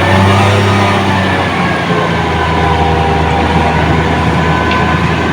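Heavy engine of road-construction machinery running steadily, a little louder in the low range for the first two seconds.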